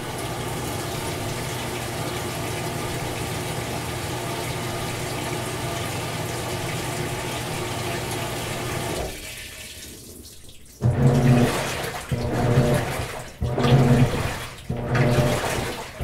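GE Spacemaker WSLS1100 washing machine: water rushes steadily into the tub, then the fill fades out about nine seconds in. A second or so later the agitation starts, the motor churning the load in louder back-and-forth strokes a little over a second apart.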